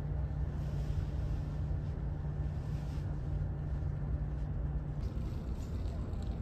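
A boat's engine running steadily, a low hum over a noisy wash; the hum steps up slightly in pitch about five seconds in.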